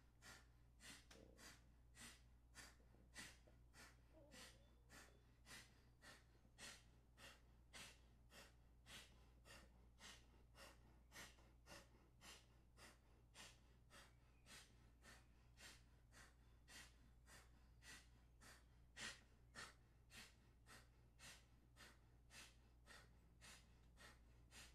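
Rapid, forceful nasal exhales at a steady pace of nearly two a second, one nostril at a time: alternate-nostril kapalabhati breathing. The breaths are faint.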